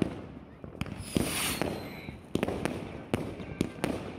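Aerial fireworks going off: about eight sharp bangs at uneven spacing, with a hiss and a faint falling whistle a little after a second in.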